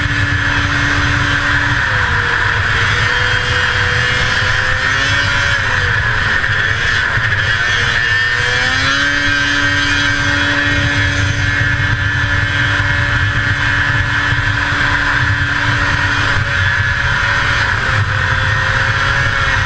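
1981 Arctic Cat El Tigre 6000 snowmobile's 500cc two-stroke engine running at high, steady racing revs. About two seconds in, the revs drop and waver; near nine seconds they climb back and hold steady again. A steady rushing noise runs underneath.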